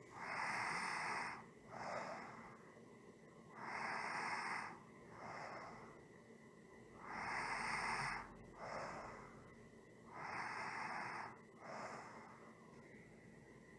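A person breathing slowly and evenly. Each breath cycle is a longer, louder breath followed by a shorter, softer one, repeating roughly every three seconds, four times in all.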